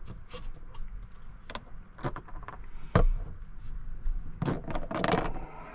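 Small clicks, clinks and knocks of camp cooking gear being handled: a canister camp stove's insulated cook cup lifted and things set down on a table, with a louder knock about three seconds in.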